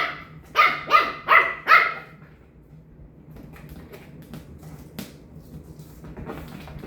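A dog barking five times in quick succession in the first two seconds, then faint rustling with a single sharp click about five seconds in.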